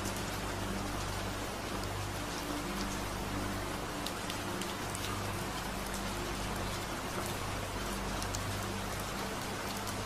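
Rain-sound sleep track: steady rain patter with scattered sharp drop ticks, over low steady humming tones that fade in and out, a delta-wave track.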